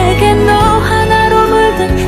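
Background music: a melody with wavering notes over sustained low tones.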